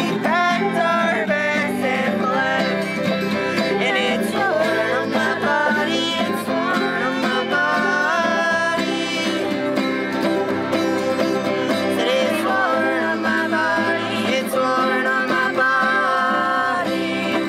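Live acoustic song in a bluegrass style: singing over a strummed acoustic guitar, a picked banjo and a bowed fiddle.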